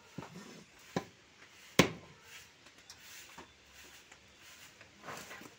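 A few sharp knocks of a cleaver chopping fish on a wooden block, the loudest just under two seconds in, over faint market background.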